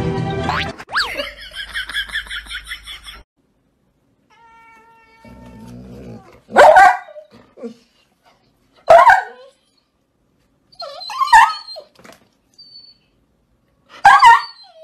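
A dog barking: four loud single barks spaced two to three seconds apart, the last near the end.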